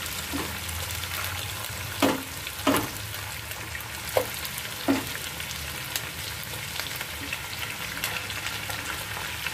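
Marinated chicken pieces sizzling as they are dropped into hot mustard oil and onion masala in a heavy-bottomed pan. The steady frying hiss is broken by a few louder sharp spits and knocks, two close together about two seconds in and two more around four and five seconds in.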